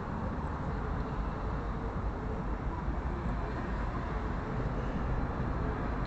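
Steady outdoor city background noise: a low, even rumble such as distant traffic.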